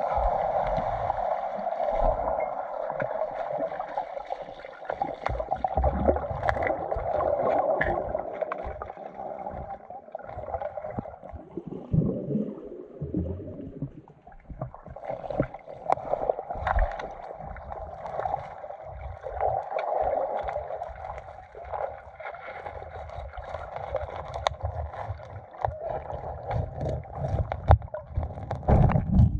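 Muffled water sloshing and gurgling with irregular low knocks, picked up by a GoPro in or at the water.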